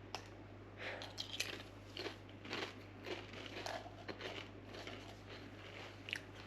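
Pringles potato crisps being bitten and chewed, with irregular crunches, over a low steady hum.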